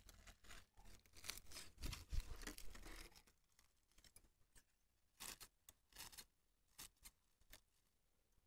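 Scissors snipping and a plastic bag crinkling as the wrapping around a fresh graft is trimmed, faint and busiest in the first three seconds; after that only a few scattered faint clicks.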